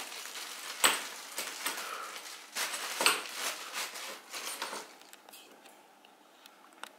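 Rustling and light clicks and knocks as the band saw's small rubber feet are unwrapped and handled. It goes quiet for the last couple of seconds.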